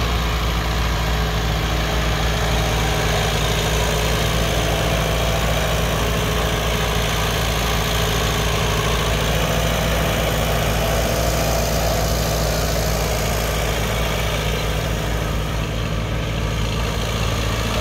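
Allis-Chalmers farm tractor engine running steadily at low speed as the tractor is driven slowly, with no revving.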